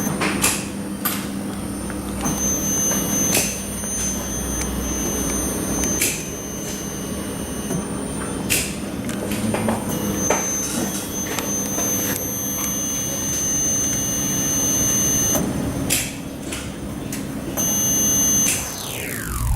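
Electrical test-bench equipment whining at a high pitch, the whine switching off and on several times over a steady low hum, with scattered clicks and knocks. Near the end a quick falling whoosh cuts the hum off.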